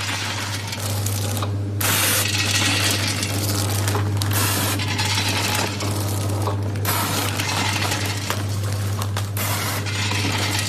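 Vertical granule pouch packing machine running: a steady hum under a loud noisy clatter that drops out briefly about every two and a half seconds, in a regular cycle.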